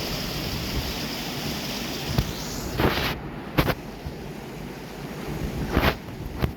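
Steady rush of stream water with wind on the microphone, broken by a few brief, sharp louder sounds about two, three and a half, and six seconds in.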